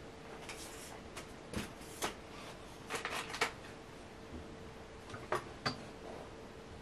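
Soft rustling and light clicks as a cat stirs on bedding with a felt pirate hat on its head: scattered ticks, a quick cluster about three seconds in, two more near the end, over a faint steady hum.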